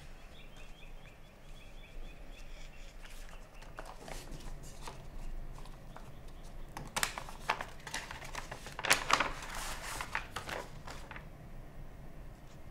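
Paper rustling and crinkling as a manila envelope is handled and opened and its contents are drawn out, in quick crisp crackles that are loudest about seven and nine seconds in.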